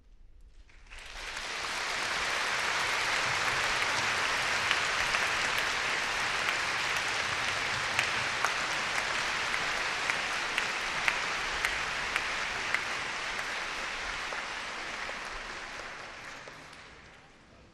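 Concert-hall audience applauding. It breaks out about a second in, stays steady, and fades away near the end.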